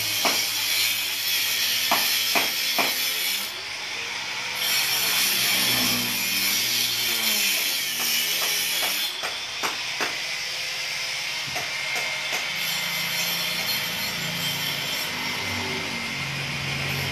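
Corded electric power tool cutting into a concrete floor: a continuous harsh hiss that drops out for about a second about three and a half seconds in, with scattered knocks.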